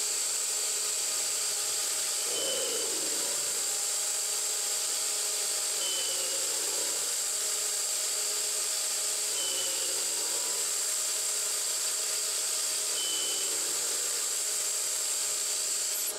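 A 9x20 benchtop CNC lathe spinning at about 1400 rpm while its carbide insert takes a light facing cut on a metal spacer. It gives a steady whine and hiss, with the pitch dipping slightly a few times.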